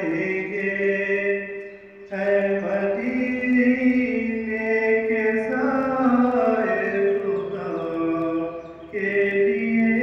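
A man's unaccompanied solo voice chanting a naat, a devotional poem, in long, drawn-out melodic phrases that glide between held notes. He breaks off briefly for breath about two seconds in and again near the end.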